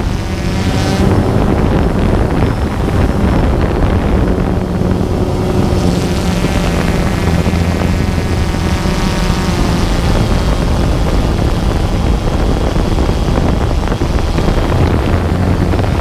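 DJI Phantom 2 quadcopter's four brushless motors and propellers buzzing steadily in flight, with wind buffeting the microphone. The motor whine wavers a little in pitch.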